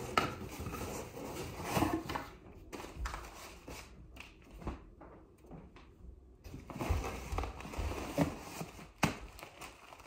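A cardboard box being opened and unpacked by hand: the lid folded back and the packaging rustling and crinkling, with scattered knocks and taps as the box and its contents are handled.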